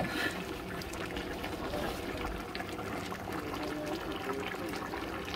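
Water running and trickling steadily, with small clicks throughout and a short knock right at the start.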